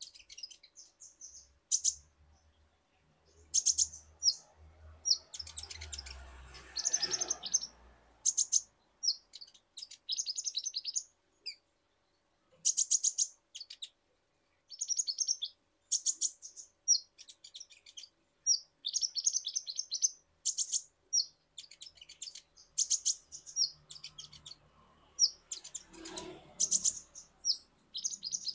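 Purple-throated sunbird (kolibri ninja) singing: high, thin, rapid chirps and trills in short bursts with brief pauses between. A soft rustling noise comes a few seconds in and again near the end.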